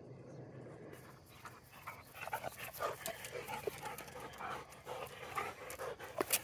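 Dogs panting hard at close range, out of breath from running fetch, as short irregular breaths starting about a second in. A sharp click comes near the end.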